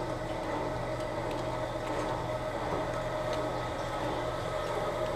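Toilet tank filling through its fill valve after the water supply is turned on: a steady hiss of running water with a constant low hum.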